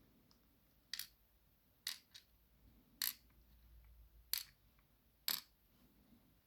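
Small sharp metallic clicks, about six of them spaced roughly a second apart, as the key pins from a gutted pin-tumbler lock cylinder are handled and set down in a pinning tray.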